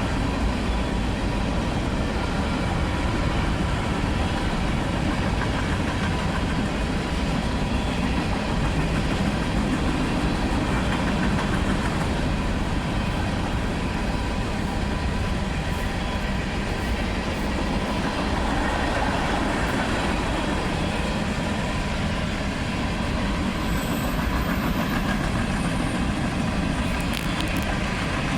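Train rolling past with a steady, unbroken rumble of railcars on the track, with wind buffeting the microphone.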